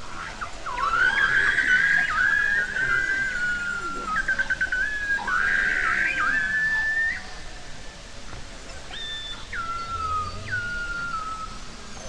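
Beluga whales whistling, recorded underwater: a string of high whistles that glide up and down or hold level, with a buzzy patch about a second in and again around six seconds, and a short run of clicks around four seconds in. Several falling whistles follow in the second half.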